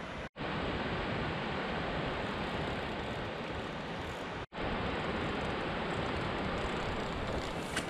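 Steady rushing of a river flowing over rocks, cut off twice by a split-second gap of silence, with a faint short click near the end.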